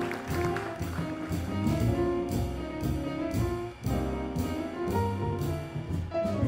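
Live jazz from a quartet of trumpet, piano, double bass and drums: sustained melodic notes over walking low bass notes, with a steady pulse of cymbal strokes.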